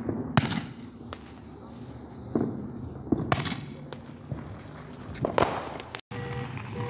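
Fireworks going off: a few loud sharp bangs a couple of seconds apart, with smaller pops between them. Near the end, after a brief break, a car alarm sounds its repeating tones.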